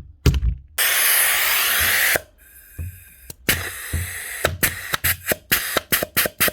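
Basso 23-gauge headless pin nailer on compressed air. A click and thump, then a long hiss of escaping air, then a quick run of short hisses with clicks as the trigger is worked. The gun leaks air and doesn't fire, a fault the owner traces to failed O-ring seals in the trigger.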